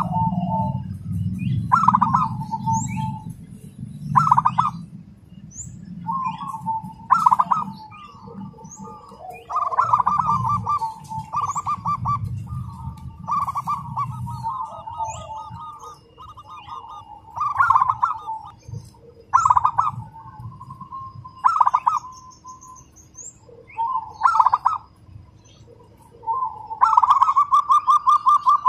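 Caged zebra dove (perkutut) cooing: short coo phrases repeat every couple of seconds, then a fast, close-spaced run of notes begins near the end. That run is the rapid 'speed rapat' delivery, likened to a sewing machine, that is sought in contest birds.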